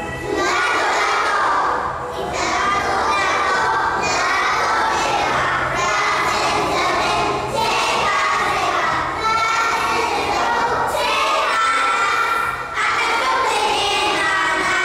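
A group of preschool children shouting loudly together in phrases of a second or two, with short breaks between them.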